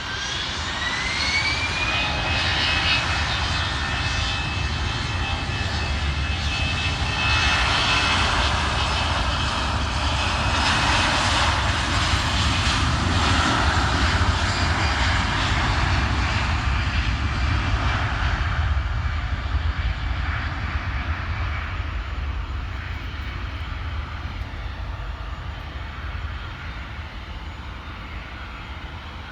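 Jet airliner's engines passing close by: a whine rises in pitch over the first couple of seconds and then holds steady, while the jet rush grows to a peak about halfway through and slowly fades away.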